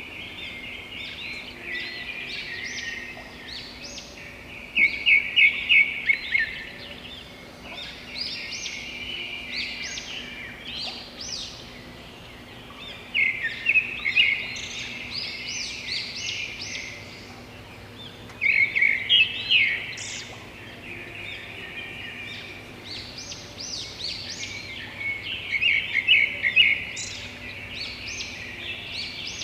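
Birdsong: several small birds chirping and twittering without pause, with louder bouts of quick repeated chirps every several seconds.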